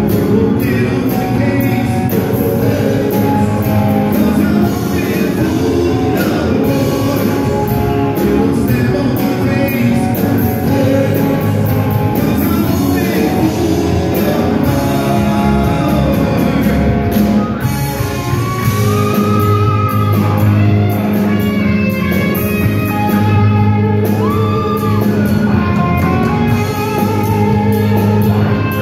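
Live rock band playing a song, with a lead singer over electric guitar, bass, keyboard and drums.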